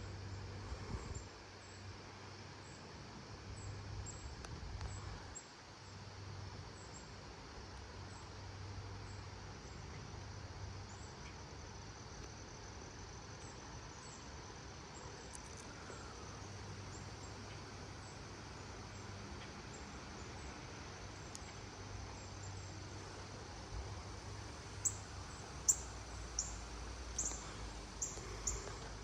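Gusty wind buffeting the microphone with a low rumble that swells and eases, under a run of short, high-pitched chirps that grow louder and more frequent near the end.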